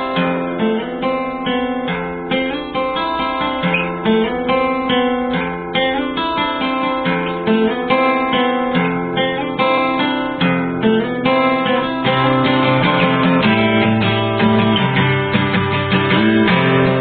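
Background music: plucked and strummed acoustic guitar over a stepping bass line, at a steady level.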